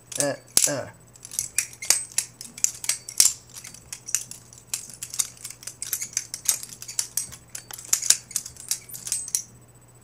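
Butterfly knife (balisong) being flipped over and over: a quick, irregular run of sharp metallic clicks and clacks as the handles swing around and strike each other.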